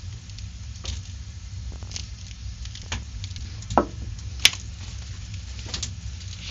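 Scattered clicks and crackles over a steady low rumble, with a louder knock about four seconds in and a sharp click just after it.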